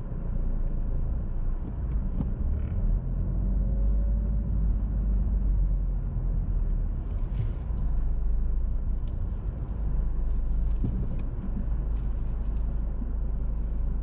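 A car driving slowly along a rough single-track lane: a steady low rumble of engine and tyres, with a faint engine note rising and falling a little in the first half and a few faint ticks.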